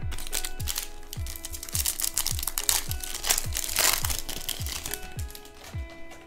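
Plastic wrapper of a baseball card pack crinkling as it is opened and crumpled in the hand, easing off about five seconds in. Background music with a steady beat of about two thumps a second runs underneath.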